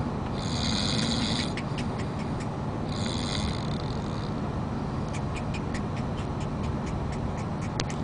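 A sleeping pet snoring over a steady low rumble of road noise: two breathy snores about two and a half seconds apart, followed by a run of light, irregular clicks.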